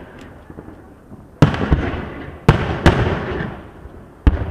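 Aerial firework shells bursting: four loud booms, one about a second and a half in, two close together past the halfway point and one near the end, each trailing off in a long rumbling echo.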